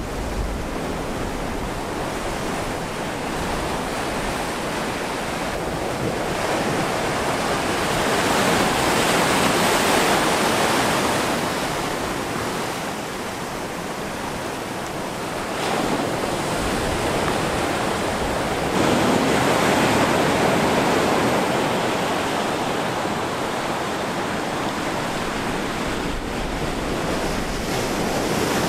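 Ocean surf breaking and washing ashore: a steady rushing noise that swells louder twice, about a third of the way in and again past the middle.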